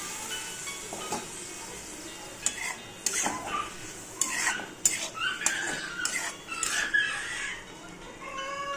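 Spatula stirring and scraping cluster beans and potatoes through masala and water in a kadhai. After about two and a half seconds comes an irregular run of scrapes and clinks against the pan, some with a squeaky ring.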